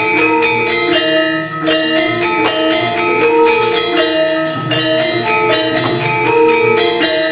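Javanese gamelan playing: metal percussion instruments struck in a dense, even pattern of ringing notes.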